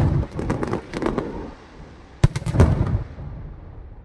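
Fireworks exploding: a sharp bang at the start and another about two seconds in, each followed by a spray of crackling pops that fades away.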